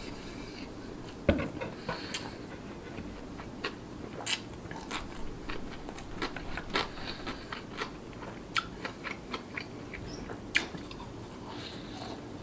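Close-miked mouth sounds of a person eating rice by hand: chewing with many short wet clicks and smacks. One sharp, louder thump about a second in.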